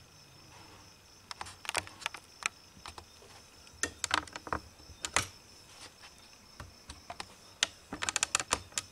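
Scattered sharp plastic clicks and taps from hands handling a laptop keyboard and its ribbon cable, coming in three short bursts.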